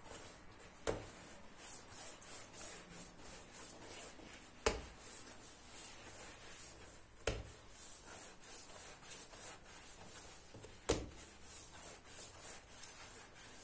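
Hands kneading and shaping soft yeast dough on a granite countertop: faint rubbing and kneading, with four dull thumps as the dough is pressed or dropped onto the stone.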